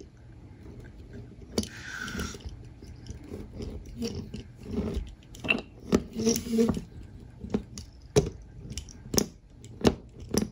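Toy die-cast monster truck with rubber tyres being handled on a wooden tabletop: pressed down on its springy suspension and rolled by hand, giving scattered light clicks and knocks of plastic and metal, with soft scraping and rustling in between.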